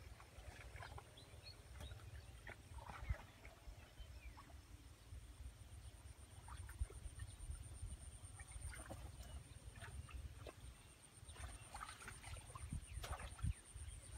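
Open-air rural ambience: a low wind rumble on the microphone, a steady faint high-pitched buzz, and scattered short animal calls, with a few sharp knocks from the phone being handled.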